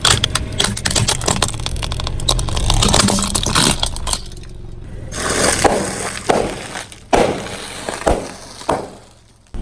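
Car tyre rolling over and crushing brittle objects: a dense run of cracks and crunches for the first four seconds, then a few separate sharp cracks, over the low rumble of the car.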